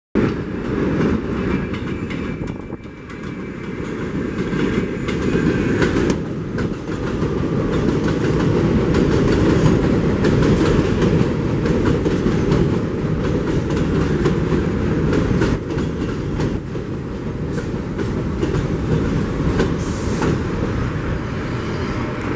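A Bombardier R62A subway train pulls into an elevated station. Its steel wheels run over the track with repeated clicking at the rail joints and brief faint wheel squeal. The sound grows louder as the cars come alongside and is loudest about halfway through.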